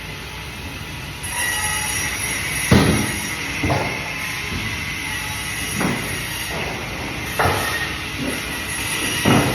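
Bandsaw running with a steady high whine as it cuts fish, with five sharp knocks spaced one to two seconds apart.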